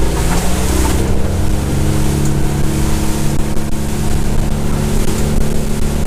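Motorboat engine running under way at speed, its pitch climbing a little during the first second and then holding steady, with wind and water rushing past the hull.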